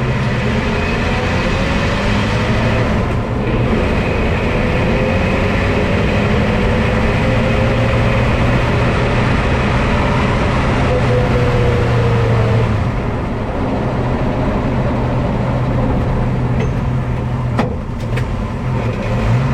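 A car on the move, with steady engine and road noise. Through the middle a faint whining tone slowly falls in pitch, plausibly the noise the car makes under braking. A few sharp clicks come near the end.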